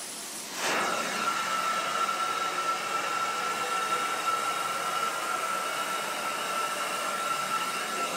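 Truck-mounted carpet-extraction wand pulling air and water up through its head as it is drawn over the carpet: a steady rushing hiss. It is quieter for the first half second, then a high steady whistle sets in just under a second in and holds.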